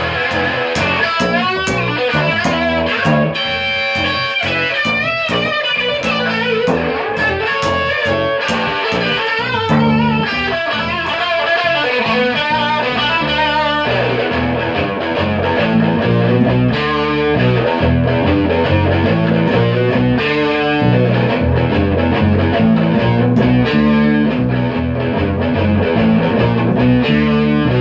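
Rock music with distorted electric guitar over a steady bass and drum beat.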